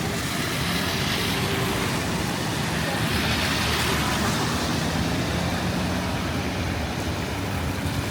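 Street traffic: a vehicle passes close by, its tyre hiss swelling about three to four seconds in over a steady engine hum.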